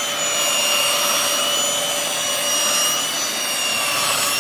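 Hoover Dual Power Pro carpet washer running steadily, its suction motor giving a high whine over a rushing hiss as the upholstery tool on the hose sucks up water.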